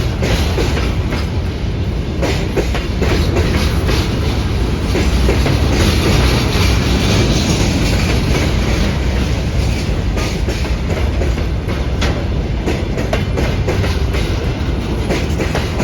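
Freight train rolling past at close range, its wheels clacking steadily over the rail joints.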